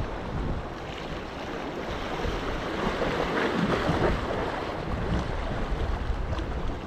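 Sea waves washing against the shore rocks, with wind buffeting the microphone in a low rumble; the wash swells louder around the middle.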